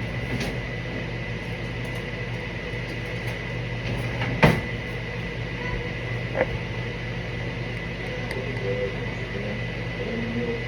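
Steady hum of a kitchen appliance, with a single sharp knock about four and a half seconds in and a lighter tap about two seconds later.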